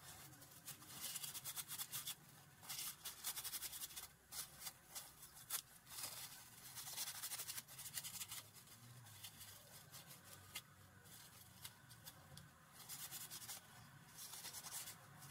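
A cloth rubbing and wiping along the metal slide of a Swiss Arms P1911 air pistol, in scrubbing stretches of a second or two with pauses, with a few light clicks of the slide being handled.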